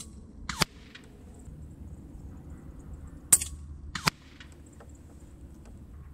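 Daystate Pulsar PCP air rifle firing two shots about three seconds apart, each a sharp crack. Under a second after each shot a second sharp snap returns from downrange, the pellet striking the distant target.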